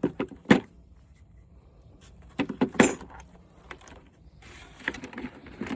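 Clicks and rattles of wiring and plastic parts being handled while a flat-screen TV is stripped for scrap. There are a few sharp clacks at the start, a cluster of them about halfway through, and a longer rustling rattle near the end.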